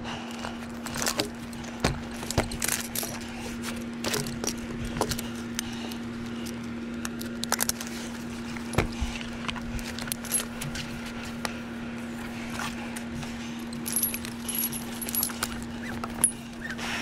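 Metal hardware clinking and knocking again and again, over a steady low hum.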